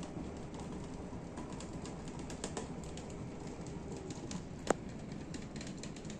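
Water boiling in a glass-lidded stainless wok on a gas stove with new ceramic plates inside: a steady bubbling with many small scattered ticks. One sharper click comes about four and a half seconds in.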